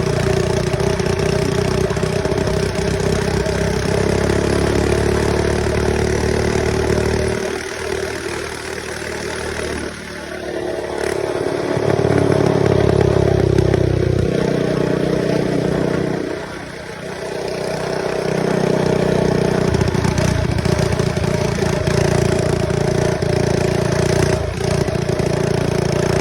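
Mini bike's small engine running under throttle as the bike is ridden, easing off twice, around seven seconds in and again around sixteen seconds, then picking back up each time.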